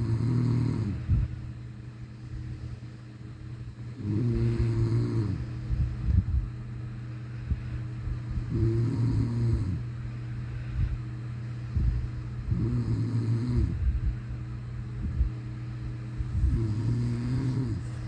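A sleeping person snoring in slow, regular breaths: five low snores about four seconds apart, each lasting a second or so.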